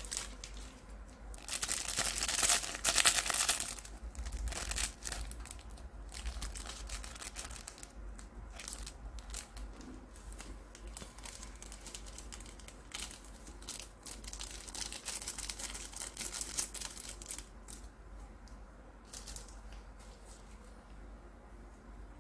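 Small plastic Indomie seasoning sachets crinkling and being torn and snipped open with scissors: irregular rustles and short clicks, with the loudest, densest crinkling about two to three seconds in.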